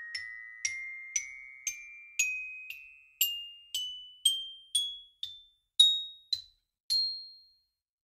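Xylophone played one note at a time up a rising scale, about two notes a second, each bright high note ringing briefly. The run tops out about seven seconds in on a last note that rings out.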